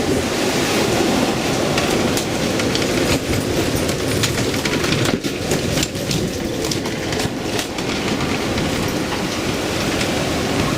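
A steady, loud roar of storm-force wind and heavy seas around a sailboat, with scattered sharp knocks and rattles.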